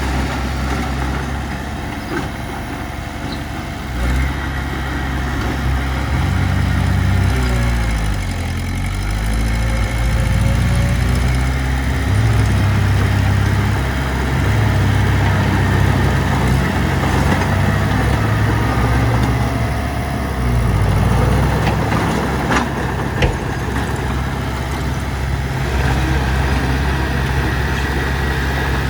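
Heavy diesel engine of working machinery running under load, its pitch dropping and climbing again about a third of the way in as it is throttled, with a couple of sharp knocks about two thirds of the way through.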